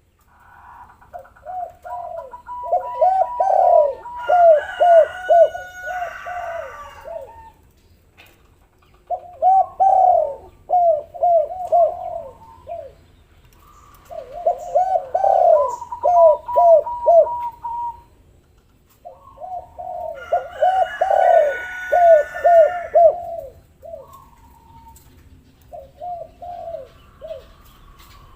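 Spotted doves (tekukur/derkuku) cooing in five bouts of rapid repeated notes, several birds overlapping, with short pauses between the bouts. Higher chirping notes sound over the two loudest bouts.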